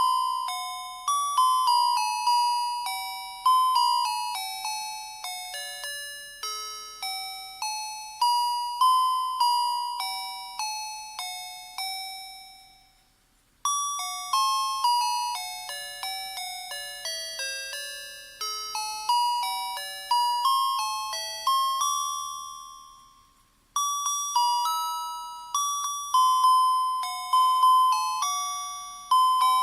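A tinny electronic melody of single bell-like notes, each struck sharply and fading, with no bass under it. It breaks off briefly twice, about halfway through and about two-thirds of the way in, then starts again.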